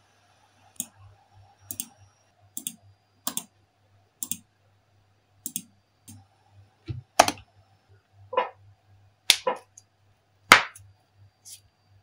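Single key presses on a laptop keyboard and clicks of a computer mouse, about one a second at first, with a few louder clicks in the second half.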